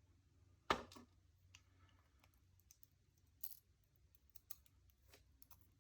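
Faint, scattered small clicks and ticks of tiny lock pins and springs being handled out of a padlock's pin chambers, with one sharper click about three-quarters of a second in.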